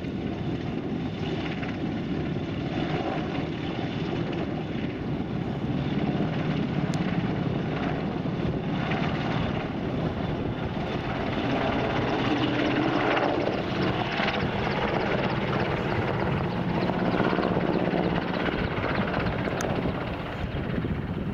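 Royal Navy AgustaWestland Merlin HC3 helicopter flying past low, its main rotor and three turboshaft engines making a steady din. It grows louder through the middle and falls away near the end.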